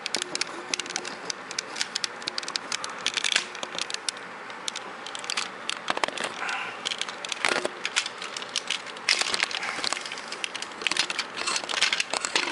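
Hard plastic parts of a Robots in Disguise Optimus Prime toy clicking and rattling as they are handled and pushed together, in irregular flurries of small clicks. The joints are not going in easily.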